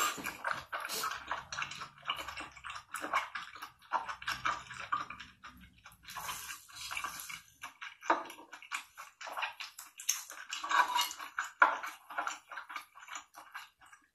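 Close-miked mukbang eating sounds: wet chewing and slurping, with irregular sharp clicks and crackles from mouth and utensils that come in louder clusters.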